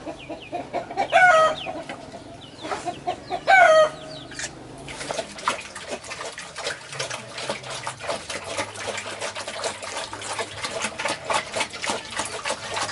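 A chicken calls loudly twice, with falling notes, in the first few seconds. Then comes dense, irregular crunching and slurping from pigs eating at a feed trough.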